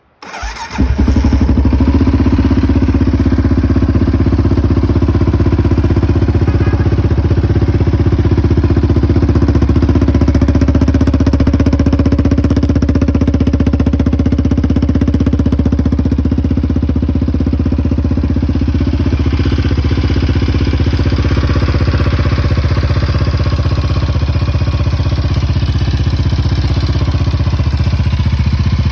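2007 Yamaha Raptor 700R's single-cylinder four-stroke engine, just rebuilt, catches on a cold start within the first second and settles into running steadily.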